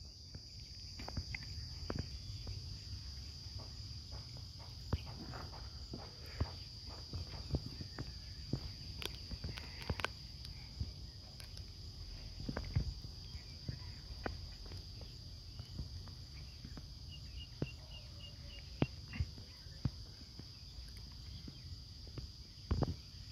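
Steady high chirring of insects over a low rumble, with scattered short clicks and knocks.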